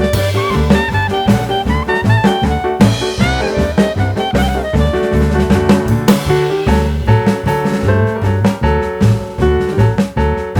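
Upbeat jazz/swing music with drum kit, walking bass and horn melody.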